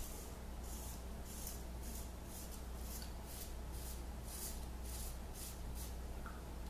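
Red Imp Wedge 132 straight razor scraping stubble through shaving lather in short, quick strokes, about two a second.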